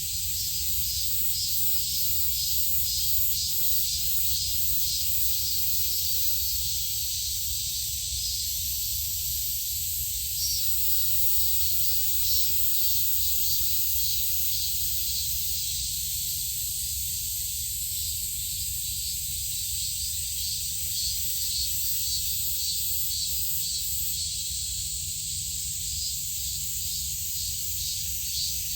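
A steady, high-pitched chorus of insects chirring, with a fast pulsing texture, over a low rumble.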